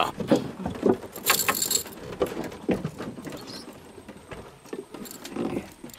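Irregular knocks, clicks and rustling as a landed giant snakehead is handled in a wooden boat, with a brief hiss about a second and a half in.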